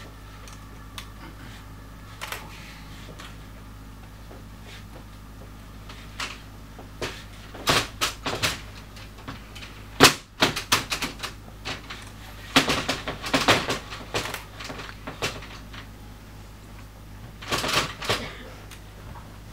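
Wooden folding chair being unfolded and set down on a wooden stage floor: clusters of clacks and knocks from its slats, hinges and legs, the loudest about ten seconds in, over a steady low hum.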